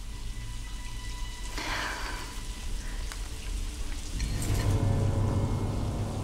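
Shower running: a steady hiss of spraying water, with a low rumble that swells from about four seconds in.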